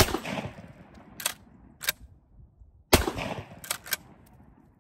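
GForce Arms GF3T pump-action shotgun firing twice, about three seconds apart, each blast ringing out briefly. Between and after the shots come two quick mechanical clacks, the pump being racked back and forward to eject the spent hull and chamber the next shell.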